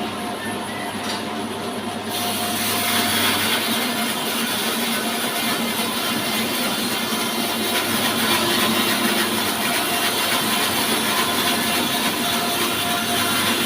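Horizontal log sawmill running steadily. About two seconds in the sound gets louder and brighter, and it stays that way.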